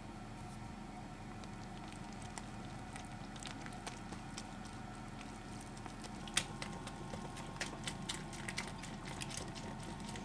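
Scattered light clicks and taps, growing more frequent in the second half with one sharper click, over a steady low hum.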